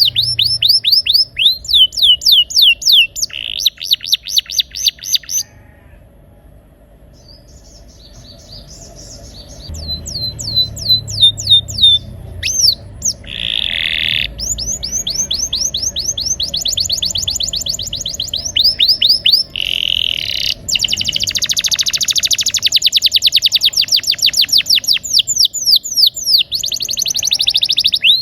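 Domestic canary singing loudly in long rolling trills of fast, repeated down-slurred notes. The song breaks off for a couple of seconds about six seconds in, then resumes with dense, unbroken rolls to the end.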